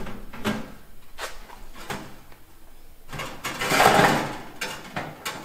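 A wire grill rack of an electric smoker being slid out of its metal box, rattling and scraping against the runners, with a few light clicks and taps before it. The loudest clatter comes about three and a half seconds in.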